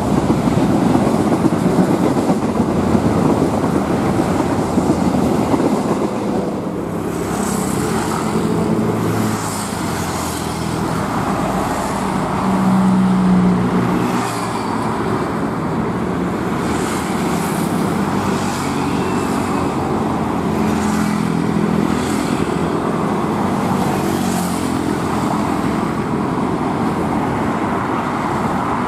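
Steady, loud rumble of road traffic crossing the flyover, mixed with a passenger train running along the rails below, with no single sound standing out.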